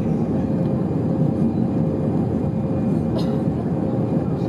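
Airbus A319 jet airliner heard from inside the passenger cabin: a steady, loud rumble of engine and airframe noise with a steady hum running through it.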